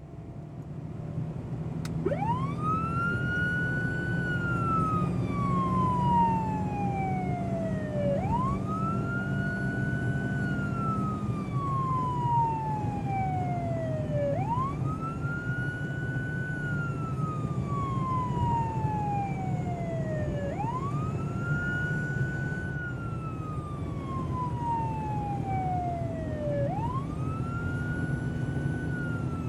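Police car siren wailing in slow cycles, each a quick rise in pitch and then a long slow fall, repeating about every six seconds. Under it runs the steady hum of the moving car's engine, which fades in at the start; the siren comes in about two seconds in.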